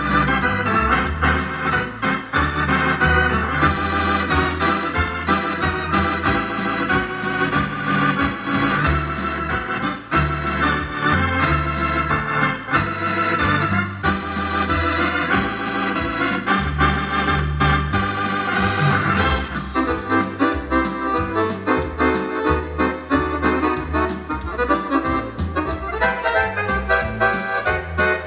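Wersi electronic home organ played on two manuals: a melody over chords and a moving bass line, with a steady beat throughout. About two-thirds of the way through, the bright upper edge of the tone drops away and the sound turns duller.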